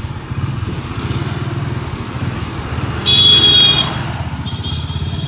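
Motorcycle engine running steadily while riding along a street. A vehicle horn beeps for under a second about three seconds in, louder than the engine.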